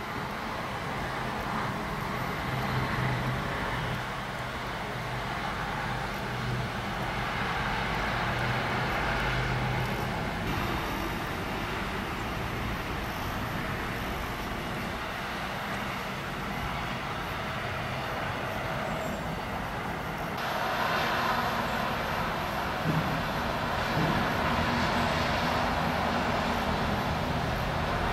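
Distant city traffic noise: a continuous rumble and hiss, with a low steady hum. The sound changes abruptly about ten seconds and twenty seconds in.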